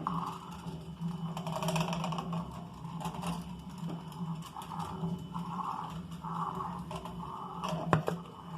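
Wire whisk clicking and scraping against a frying pan as a sauce is whisked over medium heat, with a sharper clack about eight seconds in.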